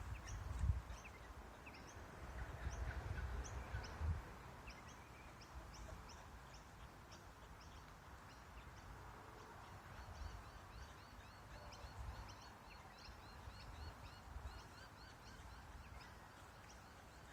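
Kangaroo making low clucking calls, a sound the uploader takes to be courtship, louder in the first few seconds. Small birds chirp throughout, with a quick trill around the middle.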